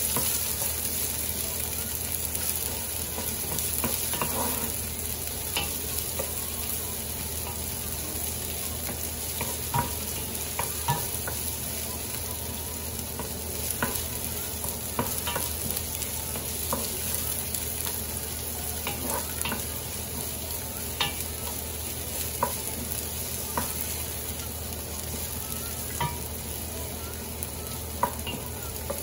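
Sliced red onion and garlic sizzling in hot oil in a nonstick pot, stirred with a wooden spoon. The steady sizzle is broken by irregular light knocks and scrapes of the spoon against the pan, roughly one a second.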